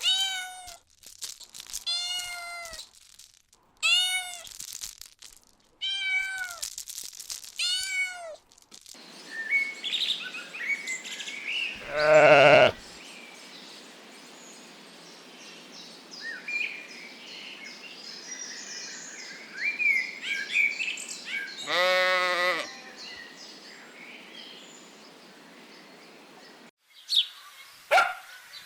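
A cat meowing about five times, each meow rising and then falling in pitch. It is followed by birds chirping over a faint hiss, with two louder, drawn-out animal calls about ten seconds apart.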